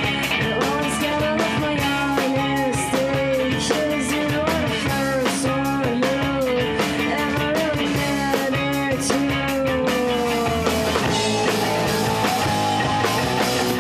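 Live rock band playing: electric guitars and drum kit, with a voice singing over them. Late on, one long note slides slowly downward.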